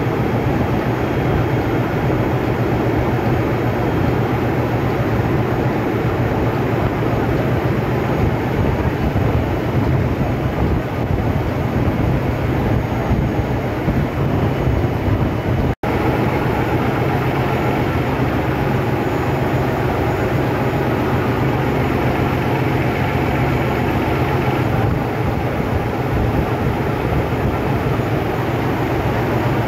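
Steady, loud drone of running engine-room machinery, with a low hum underneath. It drops out for an instant about halfway through.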